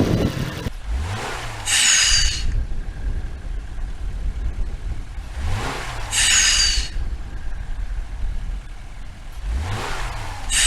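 Subaru Crosstrek's flat-four engine revving three times. Each rev is followed by a short blow-off hiss with a falling whistle from the fake turbo.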